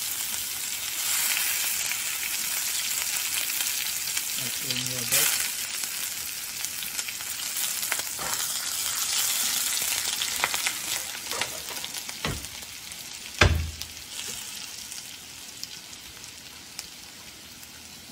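A tadka of spices and green aromatics sizzling in hot ghee in a stainless steel pan, a steady frying hiss that dies down over the last few seconds. Several sharp knocks of a utensil against the pan come through it, the loudest about thirteen seconds in.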